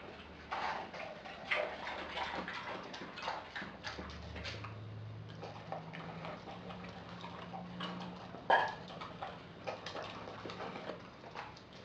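Australian Kelpie eating from a glass bowl: irregular wet smacks and chewing clicks, with teeth and muzzle tapping the glass, one sharper click about eight and a half seconds in.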